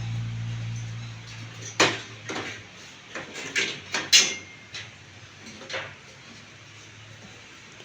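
A low steady hum dies away in the first two seconds, then a run of about eight sharp knocks and clacks at irregular intervals, the loudest about four seconds in, as the bed base is worked on.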